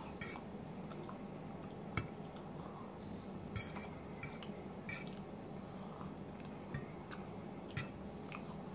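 Metal fork clinking and scraping against a plate while picking up poutine: scattered sharp taps, the loudest about two seconds in.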